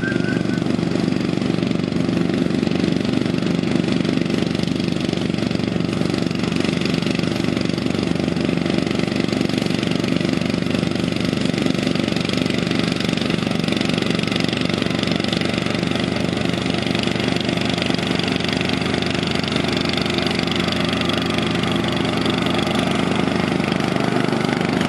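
Engine of a Case IH ride-on lawn tractor running at a steady speed while it mows grass.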